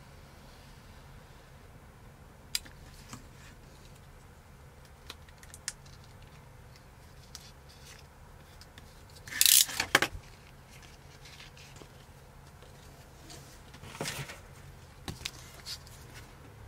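Vinyl skin film being hand-cut and peeled: a few faint clicks and ticks of the utility knife and film, then a loud crackly rip about nine seconds in as the adhesive vinyl is pulled up, a shorter one about fourteen seconds in, and a few more clicks near the end, over a low steady hum.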